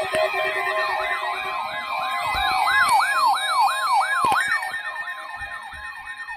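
Electronic siren wailing in a fast up-and-down yelp, about three sweeps a second, with several layers overlapping over a steady high tone. It is loudest about halfway through and fades toward the end, with a sharp click about four seconds in.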